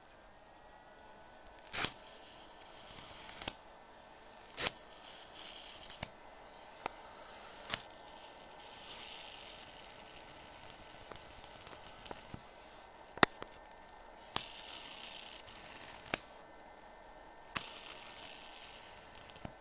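High-voltage arc at the output of a flyback transformer driven by a ZVS driver. It hisses in stretches that come and go, with about ten sharp snaps spread through, over a faint steady whine.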